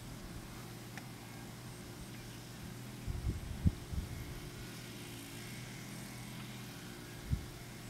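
Wind buffeting the microphone in low thumps, a cluster about three seconds in and one more near the end, over a steady low hum.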